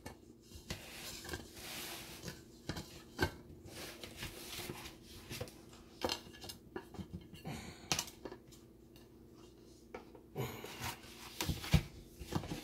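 A ceramic plate and a metal tube cake pan clicking, tapping and scraping against each other as the pan is flipped to turn the cake out onto the plate. The taps are light and irregular, with a few sharper knocks at about 3, 6 and 8 seconds and near the end.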